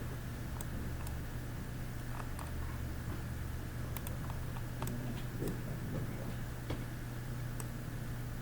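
Scattered computer mouse and keyboard clicks, about a dozen, irregularly spaced, over a steady low electrical hum.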